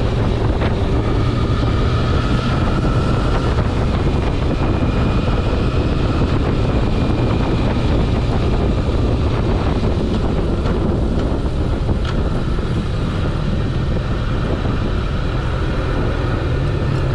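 Sport motorcycle engine running at cruising speed with steady wind rush over the microphone.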